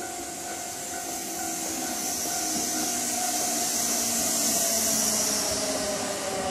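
Kintetsu electric commuter train running in toward the platform and slowing. A hiss of wheels on rail grows steadily louder, with a motor whine that slowly falls in pitch as it brakes near the end.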